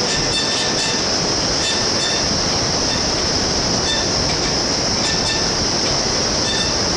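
Steady rushing noise of a white-water river in the gorge far below, with a steady high-pitched drone over it.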